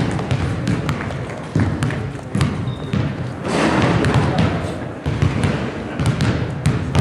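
Basketball bounced on a gym's hardwood floor, several dull thuds, over the steady chatter of people in the gym.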